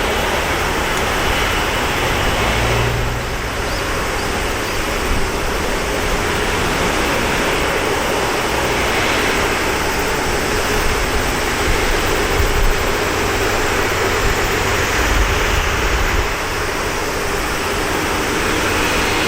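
Airbus A330-300's Rolls-Royce Trent 700 jet engines at takeoff power: a loud, steady roar with a faint steady whine running through it.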